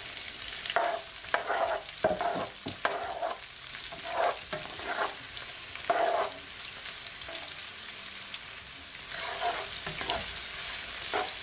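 Sliced sweet peppers, onion, carrot and scotch bonnet sizzling in a little hot oil in a nonstick frying pan, stirred with a spatula: a steady sizzle with a run of short stirring strokes in the first half and more near the end.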